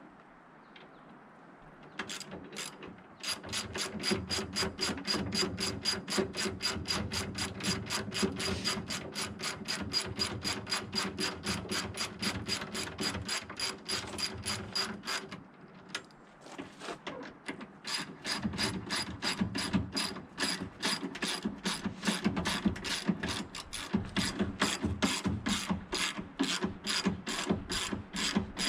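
Ratchet wrench clicking in a quick, even rhythm, about four clicks a second, while driving the tailgate hinge bolts. It stops briefly about halfway through, then starts again.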